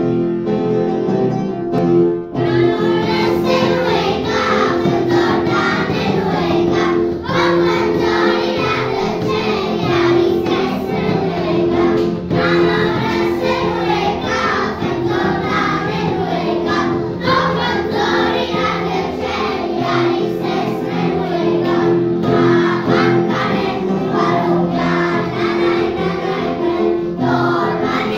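A choir singing over a steady instrumental accompaniment, which plays alone for about the first two seconds before the voices come in.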